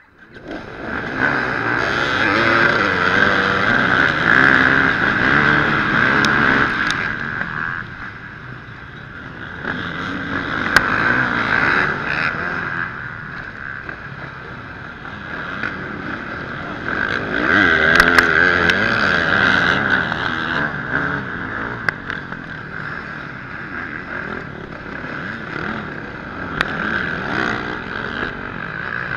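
Enduro motorcycle engines revving and accelerating away together at a race start, the nearest bike loudest; the sound bursts in suddenly at the start, then swells and dips as the riders open the throttle and shift through the gears.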